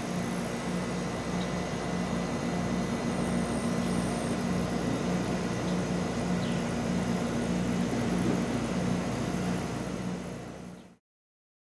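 A motor runs steadily with a low, evenly pulsing drone under a wash of noise, then fades out near the end.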